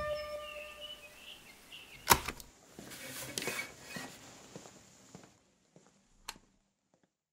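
The last notes of the song ring out and fade within the first second, under faint high chirps. A sharp click comes about two seconds in, followed by soft rustling and small clicks, and one more sharp click a little after six seconds.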